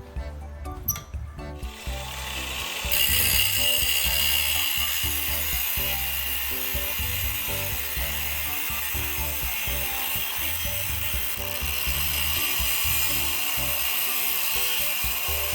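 Power tool, most likely an angle grinder, working steel: it starts about two seconds in and then runs steadily, over background music.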